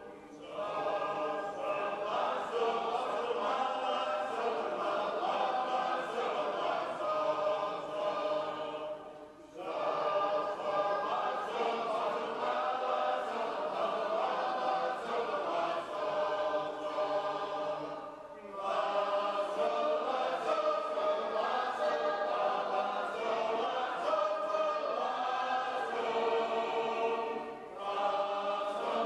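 A group of shape-note singers singing a hymn a cappella in parts. The singing breaks off briefly between phrases about every nine seconds.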